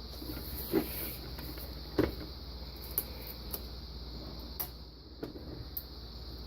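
Scattered light clicks and taps of small hardware being handled as nuts are threaded onto bolts by hand, over a steady background hum.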